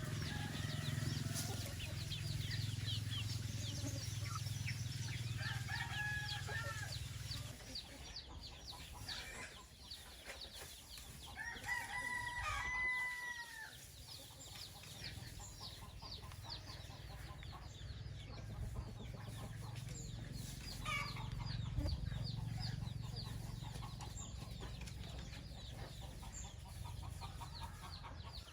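Rooster crowing, once about six seconds in and again more strongly around twelve seconds, with chickens clucking and chirping between the crows. A low steady hum runs underneath for much of it.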